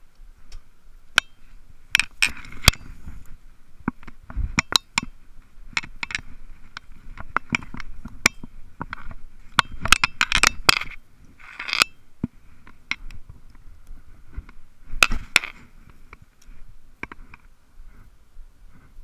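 Irregular crackling, snapping and scraping of dry grass and brush being trodden on and pushed through, with sharp clicks and a few busier bursts.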